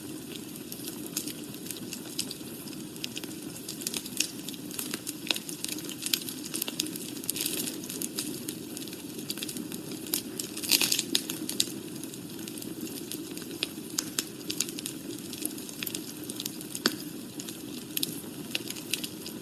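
Wood fire burning in a fireplace: a steady low rush under constant crackling, with popping and snapping. A cluster of louder pops comes about halfway through, and a single sharp snap near the end.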